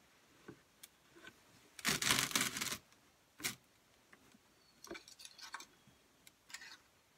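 Hands-on handling noises: scattered light clicks and knocks, with a louder rustling scrape lasting nearly a second about two seconds in and a shorter one soon after.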